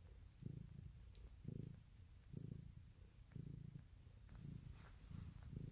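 A cat purring faintly, in an even rhythm that swells and fades about once a second as she breathes in and out. The cat is a mother in labour, about to pass a placenta.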